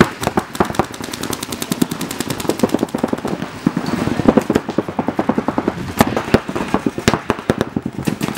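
Paintball markers firing in fast, continuous streams of sharp pops, several guns overlapping, with many shots a second and louder single cracks standing out here and there.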